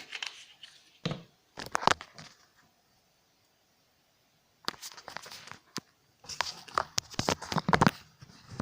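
Handling noise at a workbench: short spells of crinkling and sharp clicks and taps as small items are picked up and set down, in three bursts with a quiet gap around the middle.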